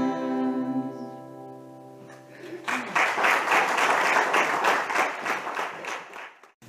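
The last acoustic guitar chord of a song rings and fades over about two seconds. Then an audience applauds for about three and a half seconds, and the applause cuts off suddenly.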